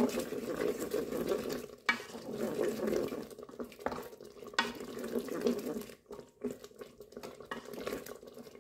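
A spoon stirring thick tomato sauce with tripe in the inner pot of a Moulinex Cookeo, the sauce cooking down on high heat. The spoon clicks against the pot twice, and the stirring eases off a little past the middle.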